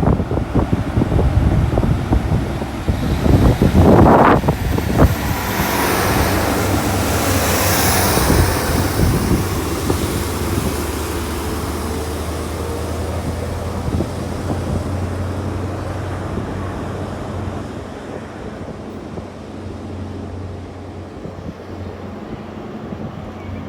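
A GWR Castle set High Speed Train, diesel-powered by Class 43 power cars, pulling out of the station. Loud clattering engine and wheel noise comes in the first few seconds, then a steady diesel drone fades gradually as the train moves away.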